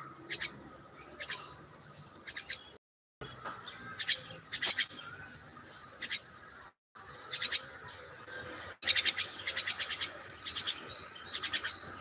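Myna calling in short, sharp high chirps, mostly in pairs and small clusters, with a quicker run of chirps in the last third. The calls are broken by two brief silent gaps.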